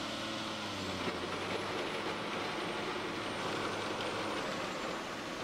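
Diesel hydraulic power pack and vibratory hammer running steadily, driving a steel caisson into the ground. It makes a dense, even machine noise with a low hum, and there is one short click about a second in.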